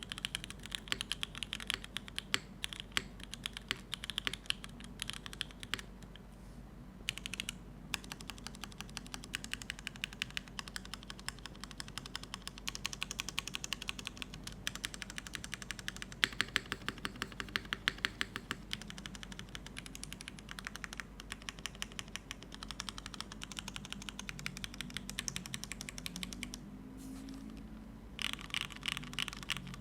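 Typing on a Neo75 CU gasket-mount mechanical keyboard with a carbon fiber plate, no foam, GMK keycaps and unlubed Cherry MX2A Black linear switches on 50 g springs: fast runs of key clacks. The typing pauses briefly about six seconds in and again near the end.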